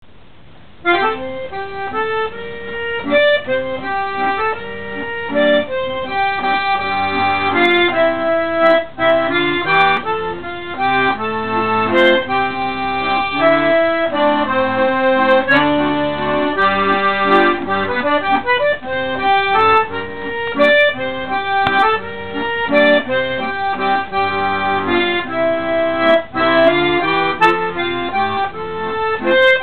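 Accordion playing a waltz tune, starting about a second in.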